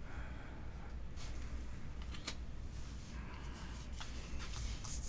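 Quiet handling of Pokémon trading cards and booster pack: soft rustles and a few light taps, over a steady low hum.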